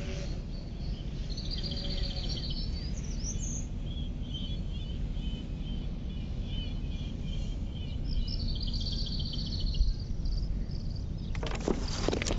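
Small songbirds singing, with short high trills and scattered chirps, over a steady low outdoor rumble. A louder burst of noise comes in near the end.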